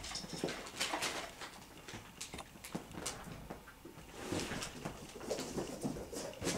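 Ragdoll kittens scampering and wrestling on a sofa: claws scrabbling on the upholstery and soft thuds as they pounce, in irregular short bursts.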